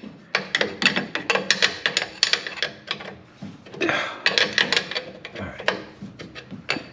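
A wrench working on a metal A/C hose fitting, clicking and clinking in two runs of quick, irregular clicks.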